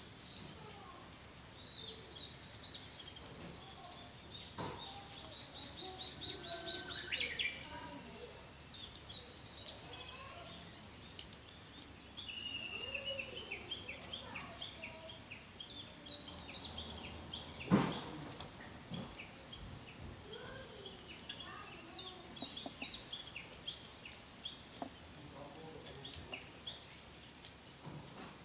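Sado frogs (Glandirana susurra) calling, with many short high bird chirps and trills around them. A single sharp thump stands out about eighteen seconds in and is the loudest sound.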